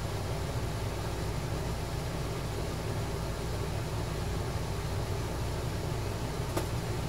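Steady low hum and hiss of room noise, with a single faint click near the end.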